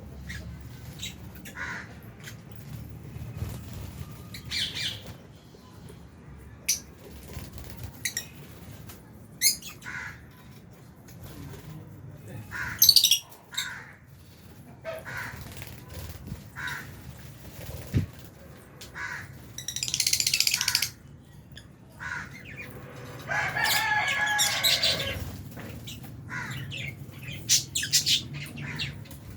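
Lovebirds chirping: scattered short, sharp calls, a denser burst of calling about twenty seconds in, and a longer drawn-out call a few seconds after that. A faint steady low hum runs underneath.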